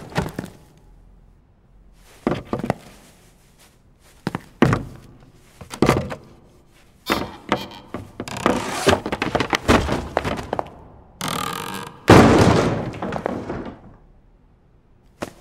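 Knocks and thuds on old wooden beams, a few seconds apart at first, then a busier stretch of clattering, and a heavy crash about twelve seconds in that dies away over two seconds.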